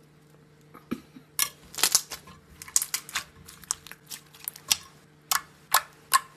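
Thick slime being squeezed and kneaded by hand, giving off an irregular string of sharp pops and clicks that starts about a second in. A faint steady hum runs underneath.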